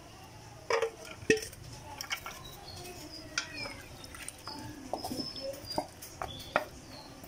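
Wooden spatula stirring pork rib and mung bean soup in a wok, knocking and scraping against the pan in a string of sharp clinks, loudest about a second in.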